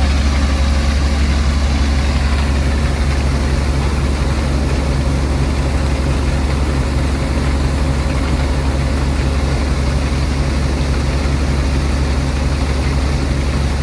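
Heavy diesel engine of harvest machinery running steadily at constant speed, a deep even hum with no change in pace.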